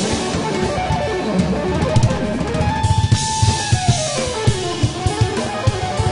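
Live jazz-fusion band: a semi-hollow electric guitar plays a fast lead line over a busy Pearl drum kit, with bass and keys underneath. About three seconds in the guitar holds a high note, then falls away in a descending run.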